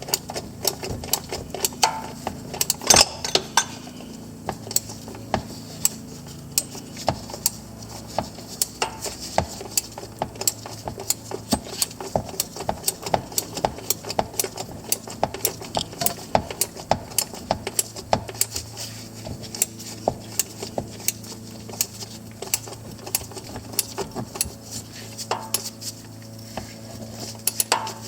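Ratchet wrench clicking in many short, irregular runs of sharp metallic clicks as a part, likely the new oil filter, is tightened to torque.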